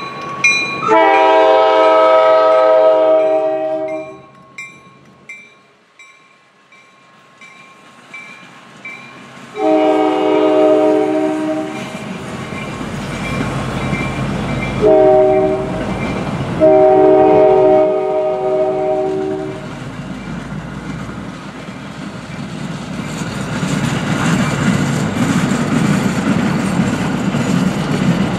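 MBTA commuter train's horn sounding two long blasts, a short one and a long one, the grade-crossing signal, while a bell rings about twice a second through the first third. From about halfway on, the passing coaches' wheels rumble and clack over the rail joints, growing louder near the end.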